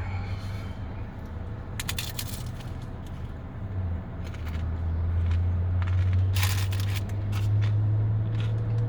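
Hard-shell taco crunching in two short crackly bursts, about two seconds in and again after six seconds, with smaller crackles between, over a steady low hum that gets louder about four seconds in.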